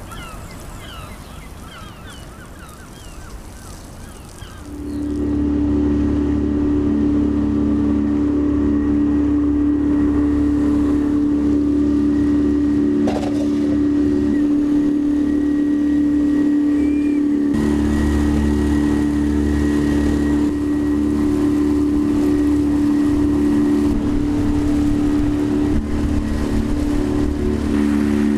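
Small boat's outboard motor running steadily under way. It comes in suddenly about five seconds in, after a few seconds of quieter outdoor sound with faint chirps, and its note shifts slightly about eighteen seconds in.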